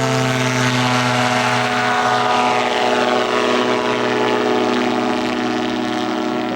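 Engine of a radio-controlled scale ultralight model running steadily at power during a low flyby. Its higher overtones drop slightly in pitch as it passes.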